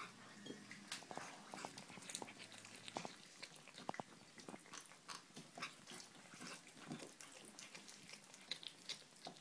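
Kittens chewing and biting raw meat from metal bowls: faint, irregular wet clicks and smacks.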